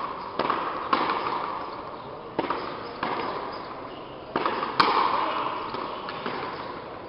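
Frontenis rally: the rubber ball cracking off racquets and the frontón's front wall, about six sharp hits, each ringing on in the hall's long echo.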